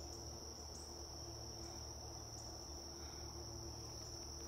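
Insects trilling in one steady, high, unbroken tone, over a faint low rumble.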